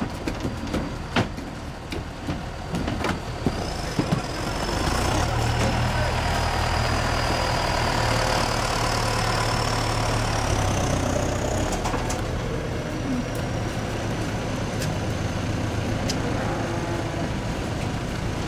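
Livestock truck's diesel engine idling, a steady low hum with a faint high whine above it. A few sharp knocks come in the first few seconds as cattle come off the truck.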